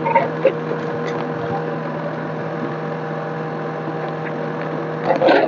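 Tractor engine idling steadily, a constant hum, with a few short clicks and knocks over it in the first second and a brief louder clatter near the end.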